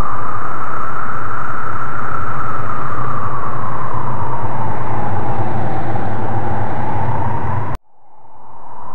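Ambient horror background sound: a loud rushing noise with a slowly wavering howl over a low rumble. It cuts off suddenly near the end and then fades back in as it restarts.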